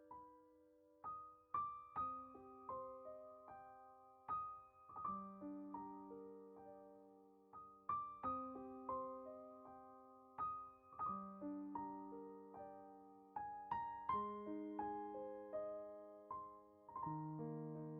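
Gentle background piano music: a slow melody over held chords, each note struck and left to ring.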